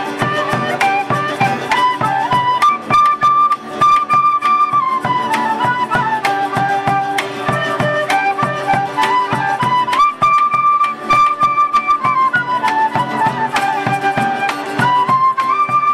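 Andean folk band playing: a flute carries a stepwise melody with long held notes over strummed charango and guitar, with a steady beat.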